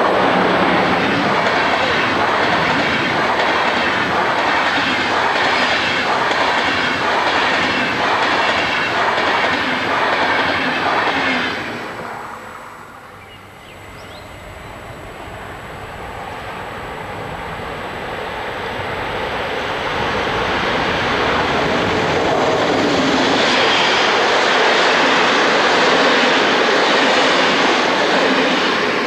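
Electric-hauled passenger train passing close by, its coach wheels clattering rhythmically over the rail joints; the noise falls away sharply about twelve seconds in as the last coach goes by. Another train then approaches, growing steadily louder and staying loud until near the end.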